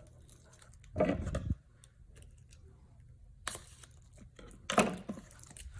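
Handling of K-pop album packaging: a few short rustles and crinkles of plastic wrap and cardboard, with a sharper tear or snap about three and a half seconds in.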